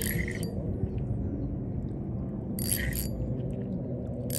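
Spinning reel being cranked to wind in line, with short rasping whirs at the start and again just before three seconds in, over a steady low rumble.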